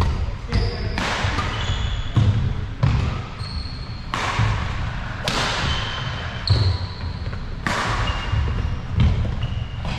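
Badminton doubles rally on a wooden sports-hall floor: repeated sharp racket hits on the shuttlecock, thudding footfalls and short high squeaks of court shoes.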